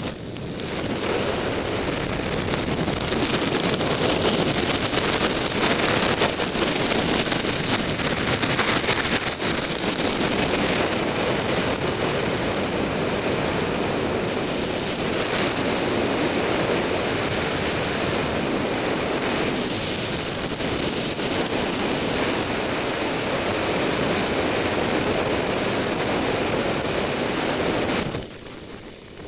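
Steady rushing wind buffeting a skydiver's helmet-camera microphone, loud and unbroken, dipping briefly near the end.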